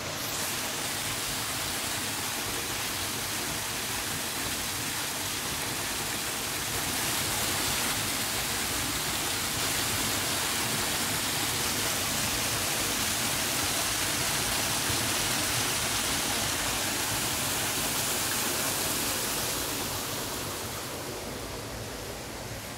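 Steady rush of flowing stream water. It grows a little louder about a quarter of the way in and eases off near the end.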